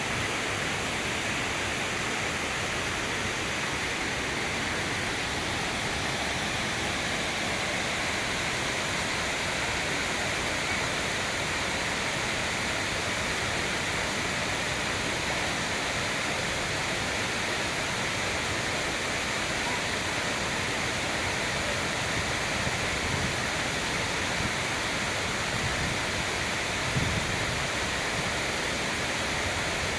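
Waterfall heard from close up: a steady, even rush of falling water and spray, with a brief low bump about 27 seconds in.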